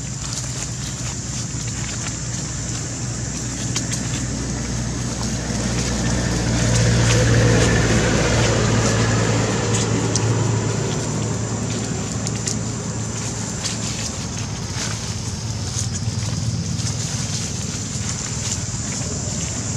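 Steady low engine hum of passing road traffic, swelling as a vehicle goes by about seven seconds in, with scattered light clicks and rustles.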